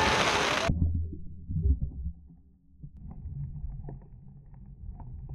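Fireworks and music cut off abruptly under a second in, giving way to the muffled low rumble of a GoPro camera recording underwater, with faint scattered clicks.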